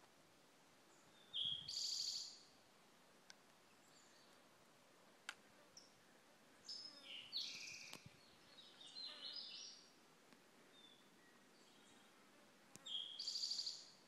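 Small songbirds singing high, rapid trills: one burst about a second and a half in, a longer run of varied high notes from about seven to ten seconds, and another trill near the end.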